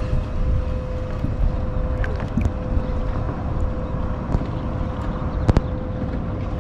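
Wind rumbling on the microphone of a kayak out on open water, with a faint steady high hum underneath. A sharp double click sounds about five and a half seconds in.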